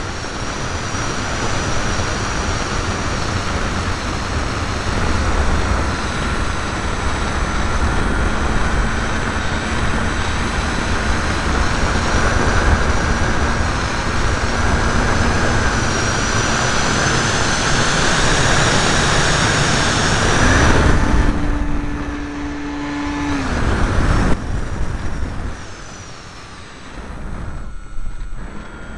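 Electric motor and propeller of a ParkZone T-28 radio-controlled model plane, heard from a camera mounted on the plane: a steady whine under heavy air rush, its pitch slowly creeping up. About two-thirds of the way in the motor is throttled back and the sound drops away, and near the end the motor comes back on.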